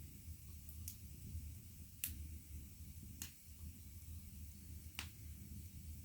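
Wood fire burning in a fireplace, crackling quietly with four sharp pops spread irregularly over a low steady rumble.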